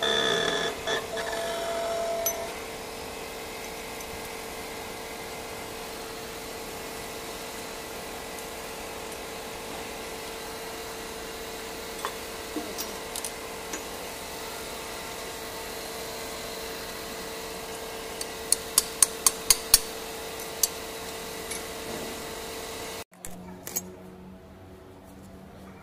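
Steady hum of a running workshop machine with a constant tone. About three quarters of the way through comes a quick run of about eight sharp taps, metal on metal, the loudest sound here.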